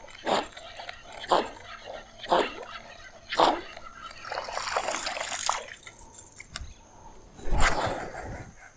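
Propeller topwater lure jerked across the water surface, its blade splashing and chugging about once a second, four times. A longer hiss follows, and a louder burst of noise comes near the end.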